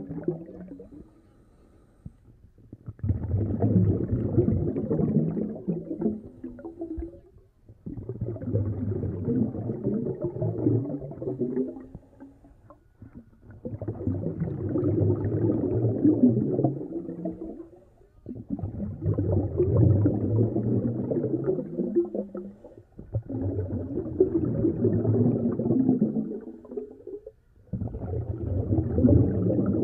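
Air bubbles in a large aquarium tank, bubbling in bursts of about four seconds that repeat evenly about every five seconds, with a short pause between them.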